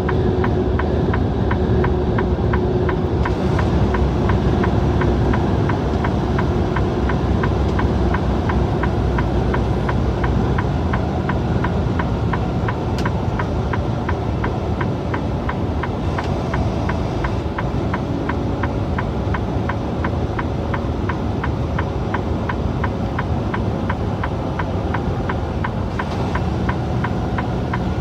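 Semi truck's diesel engine and road noise heard from inside the cab while cruising on the highway: a steady drone with no change.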